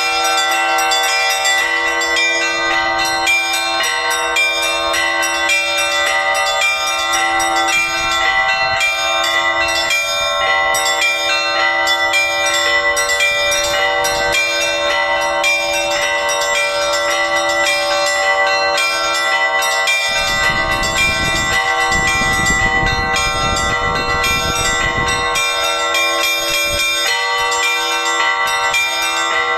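Orthodox church bells rung by hand in an Easter peal (zvon): quick, busy strikes on the small high bells over the steady ringing of the larger bells.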